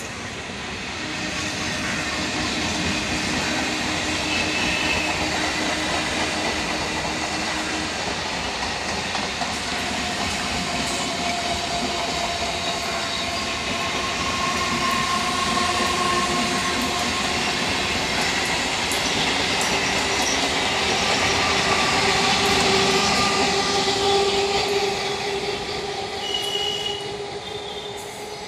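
A 12-coach electric multiple unit (EMU) suburban train slowly accelerating along the track, its motors whining in several steady tones that climb gradually in pitch over the rumble of wheels on the rails. The sound is loudest a little before the end, then eases off.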